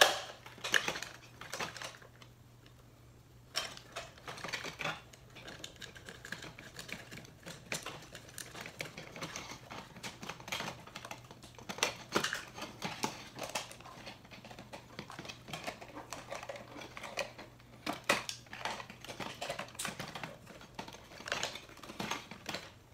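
Irregular small metal clicks and clinks of a retaining ring being fitted and tightened onto a toggle switch's threaded neck, through a hole in a vintage camera's metal body. There is a short pause about two seconds in.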